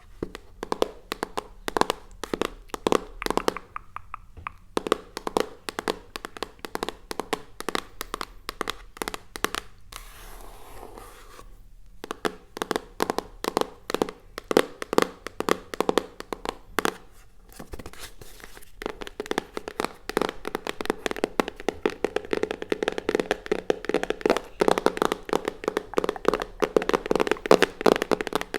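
ASMR tapping: many quick, light taps on objects, with a short softer stretch about ten seconds in before the tapping picks up again.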